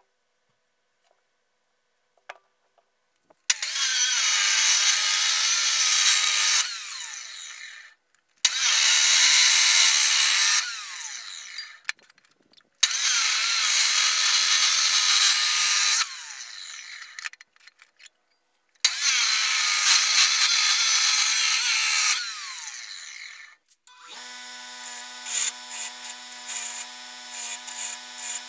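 Abrasive chop saw cutting rusty steel pipe: four separate loud grinding cuts of about three seconds each, the disc winding down after each one. About 24 seconds in, a bench grinder and belt sander combo starts running with a steady hum, and a cut pipe ring is pressed against the sanding belt in short repeated strokes, about two a second, to deburr it.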